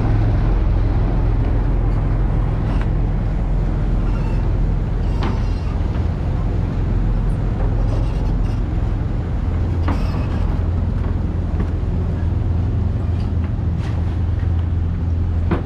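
A large engine running steadily with a low drone, with a few faint clicks over it.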